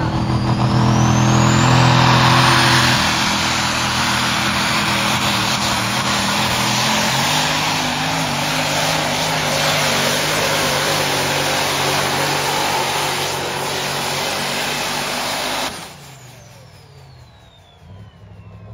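Diesel pickup truck engine running at full throttle under heavy load while pulling a weight sled, with a high turbo whistle rising in the first two seconds. The engine noise cuts off suddenly near the end.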